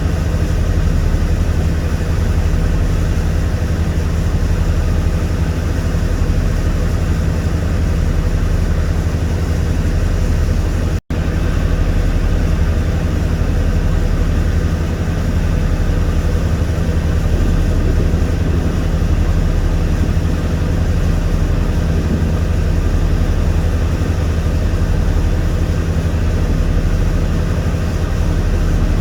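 Ship's engine running steadily, heard on board: a constant low drone with a hiss of noise over it. The sound drops out for an instant about eleven seconds in.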